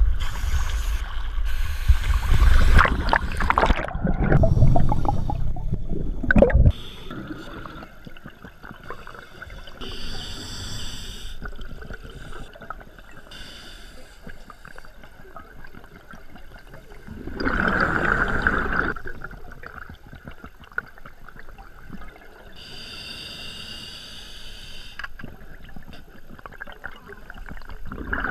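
Sea water sloshing against a camera housing at the surface, cutting off suddenly about seven seconds in as it goes under. Then a muffled underwater wash with a scuba diver's regulator breathing: faint hisses and a louder rush of exhaled bubbles a little past halfway.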